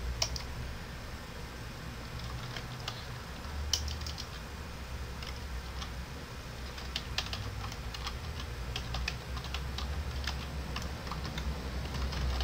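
Typing on a computer keyboard: irregular runs of key clicks over a low steady hum.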